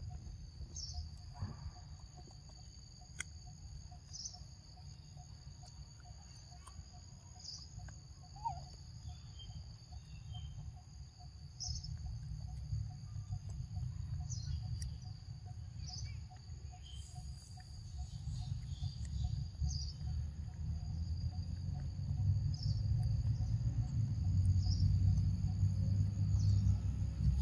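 Steady high-pitched insect drone, with short chirps every couple of seconds. A low rumble underneath grows louder in the second half.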